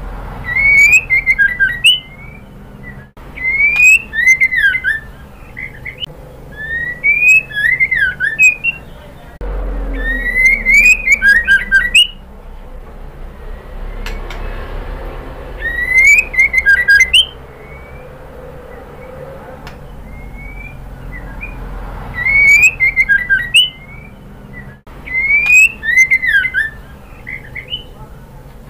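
White-rumped shama (murai batu) giving short, loud whistled phrases, about seven in all, each lasting a second or so with a few seconds between them, presented as a female calling to a male. A steady low hum runs underneath.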